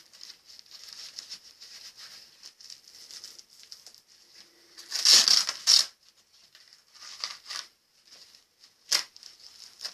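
Velcro (hook-and-loop) strap of a surf leash cuff rustling as it is handled, with a loud rip about five seconds in as the velcro is pulled open, and a shorter rip near the end.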